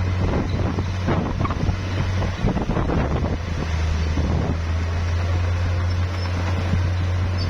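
Bulldozer's diesel engine running steadily under load, a continuous low drone, with irregular knocks over it.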